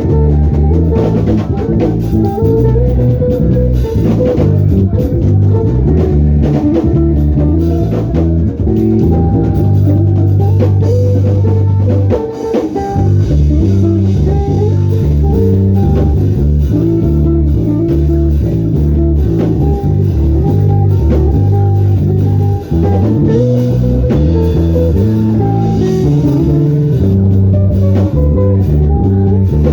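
Band music: an electric bass guitar plays a busy, stepping bass line over a drum kit and guitar.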